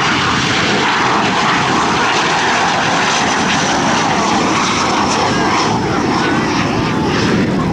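Avro Vulcan XH558's four Olympus jet engines, loud and steady as the bomber flies low past.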